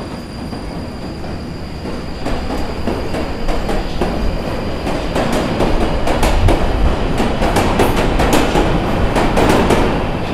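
London Underground train running, growing louder about two seconds in, its wheels clattering on the rails with high metallic squeals in the second half.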